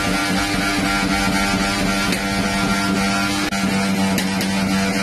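A loud, steady machine drone that holds one constant low pitch, with no rise or fall.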